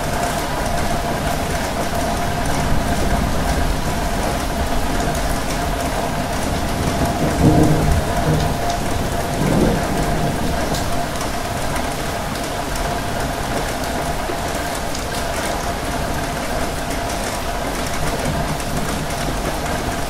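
Steady heavy rain falling on a hard surface, with two brief low rumbles, one a little before the middle and one a couple of seconds later.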